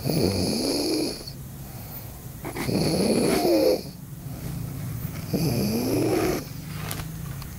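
Snoring: three loud snores about a second long, roughly two and a half seconds apart, each rising in pitch, with quieter breathing between them.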